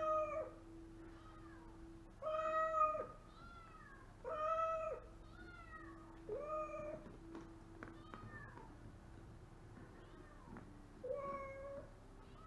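Domestic cat meowing over and over: five loud, drawn-out meows a couple of seconds apart, with softer meows between them and a longer gap before the last one.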